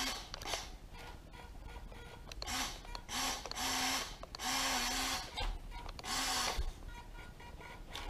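A WPL C24 1:16 RC pick-up truck's small electric motor and plastic gears whirring in about five short bursts, each under a second long, as the transmitter controls are worked.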